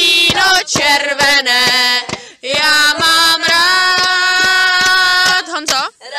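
A girl's or woman's voice singing a melody without accompaniment, holding a long steady note in the middle, with short breaks between phrases.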